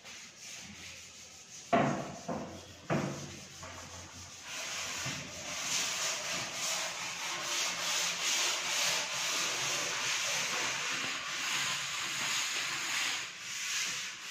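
Two sharp knocks about two and three seconds in, then from about four seconds on a steady, scratchy rubbing noise.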